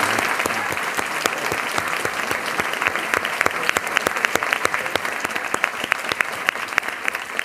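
Audience applause: many people clapping at once, slowly dying down, with single claps more distinct near the end.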